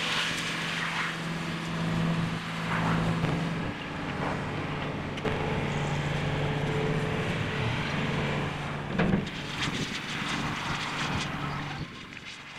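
An engine running with a steady drone that steps down slightly in pitch a few times, over a broad wash of noise. There is a short sharp knock about nine seconds in, and the drone dies away near the end.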